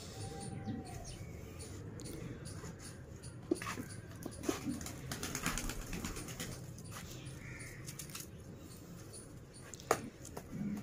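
Faint bird calls, with scattered light knocks and scrapes; a sharp click stands out twice, about a third of the way in and near the end.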